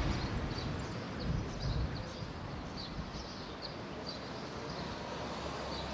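Outdoor ambience: short, high bird chirps repeating about two or three times a second over a steady background of noise and low rumble.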